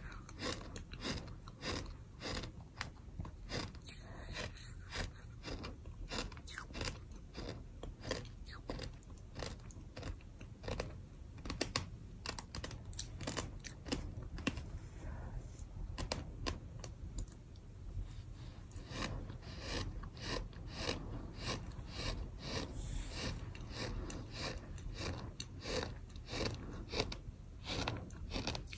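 Sand being chewed: dense, gritty crunches, several a second, going on without a break.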